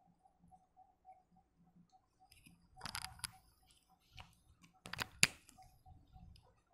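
A few sharp clicks and rustling handling sounds in two clusters, about three seconds and five seconds in, over a faint high tone pulsing about three times a second.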